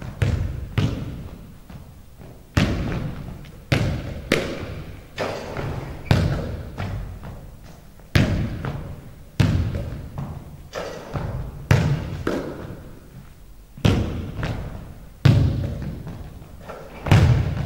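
Basketball thudding on a hardwood gym floor during a shooting drill: sharp, irregular thuds every second or so, each echoing in a large, bare gym.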